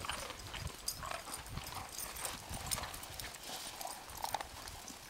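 Footsteps crunching in snow, a quick irregular run of soft crunches.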